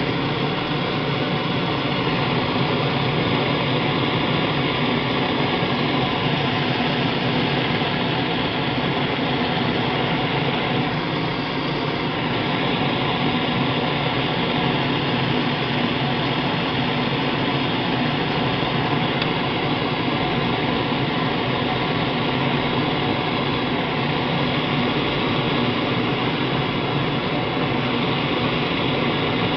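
Propane torch flame burning with a steady, even rushing noise while it heats an aluminium brake lever to soften it for bending.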